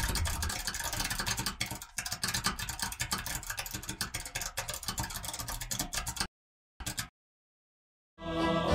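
Computer keyboard typing: a rapid, irregular run of key clicks that stops abruptly about six seconds in. Music starts near the end.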